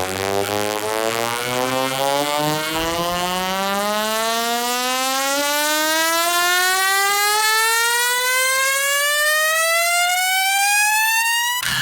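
Siren-like riser in a bass-boosted electronic remix: one buzzy tone with many overtones climbing steadily in pitch, over low bass notes that fade out in the first few seconds. It cuts off sharply just before the end, as the build-up gives way to the drop.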